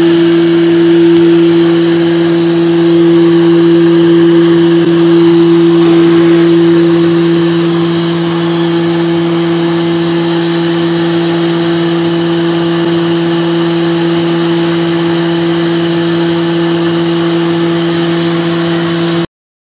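PF16 combination planer-thicknesser running with no load: a loud, steady hum from its electric motor and spinning cutterhead, a little quieter from about eight seconds in. It cuts off suddenly near the end.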